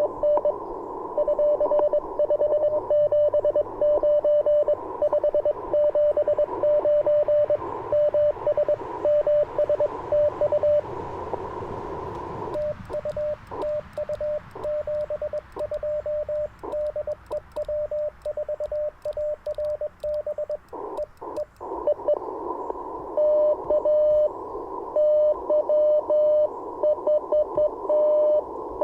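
Morse code from an Icom IC-705 transceiver: a single steady-pitched tone keyed in dots and dashes over a band of receiver hiss. For several seconds in the middle the hiss drops away while the keying goes on, and the hiss returns near the end.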